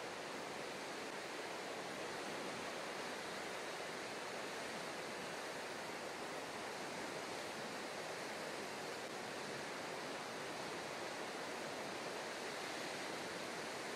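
Steady, even wash of seawater at the shoreline, a constant rush with no separate wave breaks standing out.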